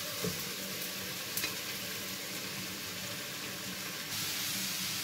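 Zucchini and other vegetables sizzling in oil in a frying pan: a steady hiss with a couple of faint ticks, growing slightly louder about four seconds in.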